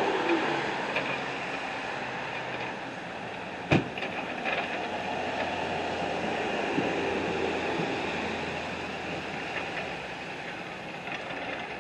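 Steady street traffic noise, a vehicle passing near the start and fading, with one sharp knock about four seconds in.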